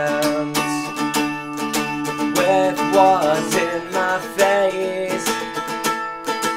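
Song music carried by an electric guitar strummed in quick, even strokes, with no singing.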